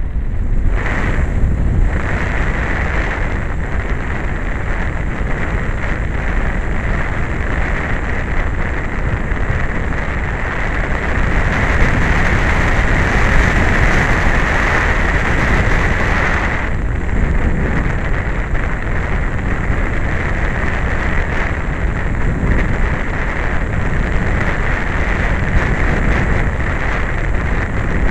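Wind rushing over the microphone of a small camera riding on an RC glider in flight: a steady rushing noise with a higher hiss. The hiss swells around the middle and drops off suddenly about seventeen seconds in.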